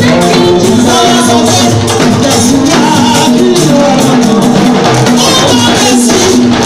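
Live church gospel music: a woman sings lead into a microphone with backing singers, over a band with percussion.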